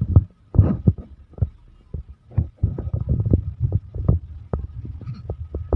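Irregular muffled low thumps and rumble, with a faint steady high tone underneath.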